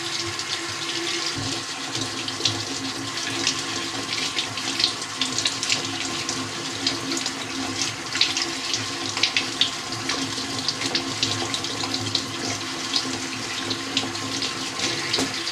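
Kitchen tap running into the sink as potatoes are scrubbed under it with a nail brush, with many short splashes over the steady flow.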